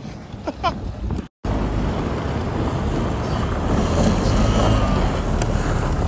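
Steady rushing noise of a bed used as a sled sliding fast over a snow-covered street, with wind buffeting the microphone. It starts suddenly after a brief break about a second in and runs on evenly.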